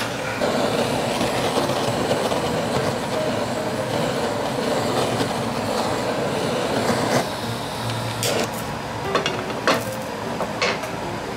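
Handheld blowtorch flame hissing steadily as it scorches cherry wood chips in a frying pan, easing off about seven seconds in, followed by a few sharp clicks.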